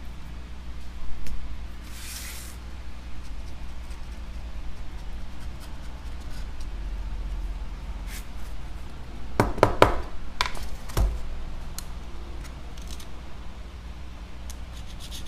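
A small hand tool scraping and tapping on an iPad Air's aluminium frame, clearing off leftover adhesive: a brief scrape about two seconds in, scattered light clicks, and a cluster of sharper knocks around ten seconds in, over a steady low hum.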